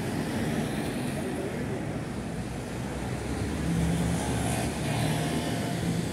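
Road traffic: a motor vehicle's engine running close by, with a steady low hum that grows louder about four seconds in.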